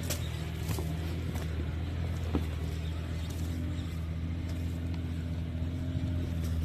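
Jeep Wrangler's engine running at steady low revs as it crawls up a rock ledge, with a few short sharp knocks in the first two and a half seconds.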